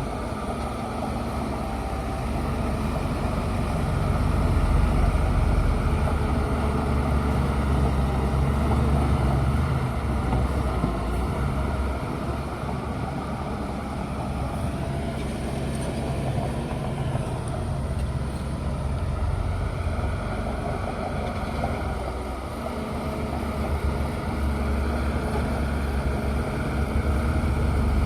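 Bulldozer's heavy diesel engine running under load, louder for several seconds near the start and again near the end, easing in between.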